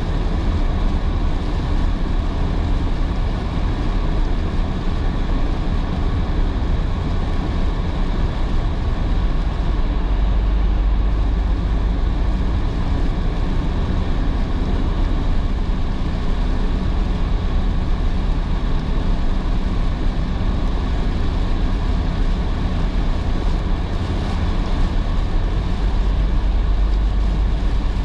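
Steady cabin noise of a car driving on a rain-soaked road: a low road rumble with the hiss of tyres on wet pavement.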